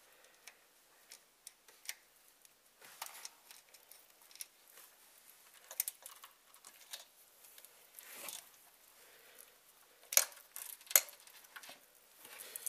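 Steel timing chain of a Toyota VVT-i engine clinking and rattling in scattered light clicks as it is worked off the sprockets by hand, with two sharper clinks about ten and eleven seconds in.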